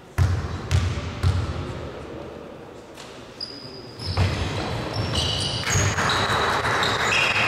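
A basketball bounced three times on a wooden sports-hall floor, about half a second apart, as a player readies a free throw. After the shot, short high squeaks of players' shoes on the court and a general commotion of movement and voices.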